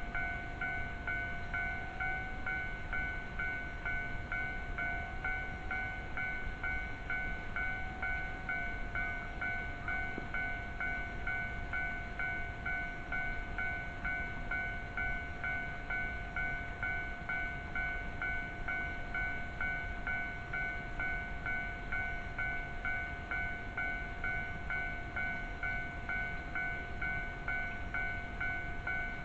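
Japanese railway level-crossing alarm ringing: an electronic bell dinging in a steady, even rhythm, sounding continuously.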